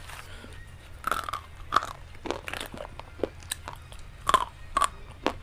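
Close-miked crunching: a series of crisp bites and chews into a thin, brittle item, about nine sharp crunches starting about a second in, with quieter chewing between them.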